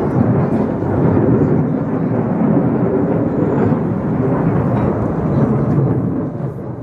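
Loud, steady rumble of an F/A-18 fighter jet's engines during a fly-by, fading out near the end.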